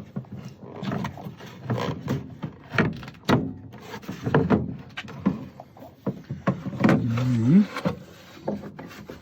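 Plastic clicks and knocks of a van's rear light cluster being handled while its wiring plug is pushed back in. About six and a half seconds in, a person's voice makes a low, drawn-out growl that rises at the end.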